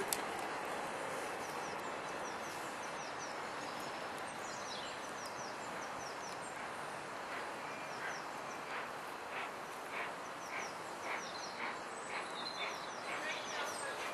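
Distant exhaust beats of the three-cylinder Peppercorn A1 Pacific steam locomotive 60163 Tornado getting under way, chuffs about twice a second that stand out from about halfway through and grow louder, over an even background noise. Small birds chirp now and then.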